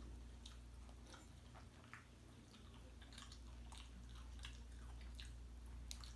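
Faint chewing of a fried chicken drumstick: scattered soft mouth clicks and smacks, over a low steady hum.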